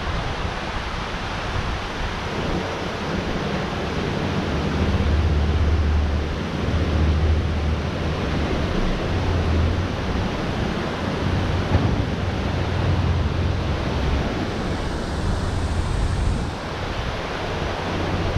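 Steady rush of water, with wind buffeting the microphone in uneven low gusts.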